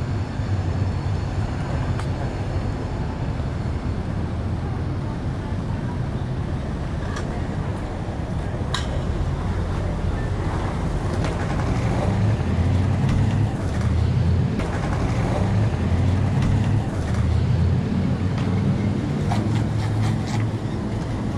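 City street ambience: a steady low traffic rumble with a few faint sharp clicks.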